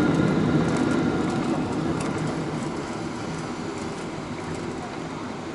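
Jet airliner's engine and airframe rumble heard inside the passenger cabin while taxiing after landing. It is a steady, low rumble that gets steadily quieter.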